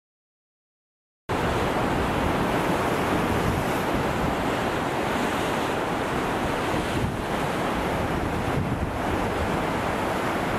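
Silence for about the first second, then steady sea surf with wind blowing on the microphone.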